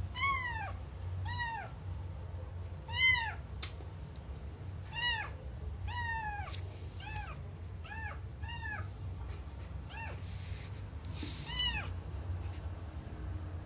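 A kitten meowing repeatedly, about ten short high-pitched meows, each rising then falling in pitch.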